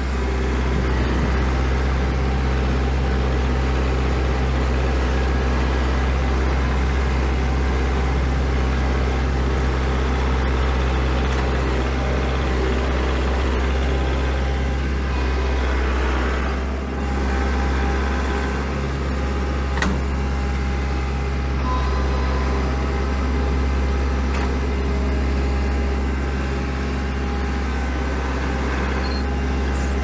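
Kubota L4701 compact tractor's diesel engine running steadily under load while it pushes snow.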